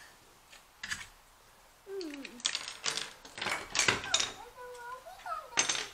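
Plastic Mega Bloks building pieces clicking and clattering as they are handled on a tabletop: a single click about a second in, then a dense run of clicks from about two to four seconds in and another short run near the end.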